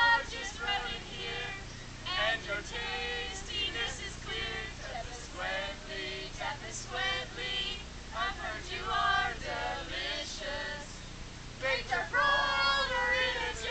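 A small mixed group of men and women singing a carol together, unaccompanied, in short phrases with brief pauses between lines.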